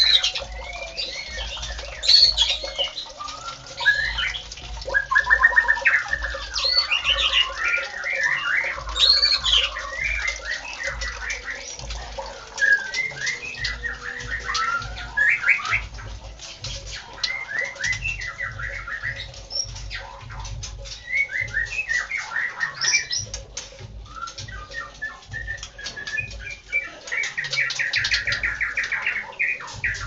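White-rumped shama (murai batu) in full song: a continuous string of varied whistled phrases and fast trills, separated by short pauses.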